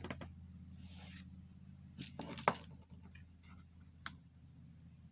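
Faint handling noises of objects being moved: a short rustle about a second in, a cluster of clicks and knocks a little after two seconds and one more click near the end, over a steady low hum.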